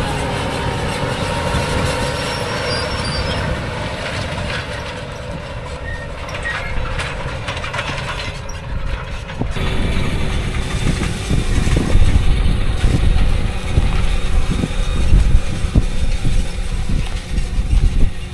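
Case IH Magnum 380CVT tractor running under load, pulling a John Deere 2510H anhydrous ammonia applicator bar and nurse tank through the field, with the clatter and rattle of the toolbar and tank running gear. A rougher, louder low rumble comes in about halfway through.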